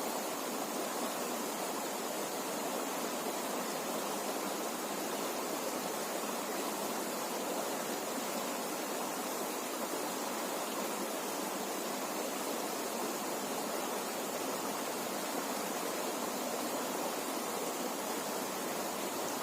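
River water flowing, a steady even rush with no change.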